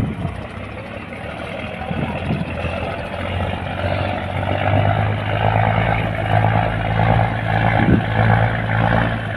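Diesel engine of a heavily loaded sand barge, accelerating hard against the current: a low, steady engine drone that grows louder over the first few seconds and then holds. A brief low thump right at the start.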